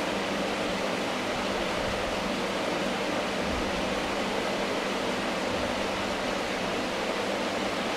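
Steady, even hiss of background noise with a faint low hum under it, and no distinct events.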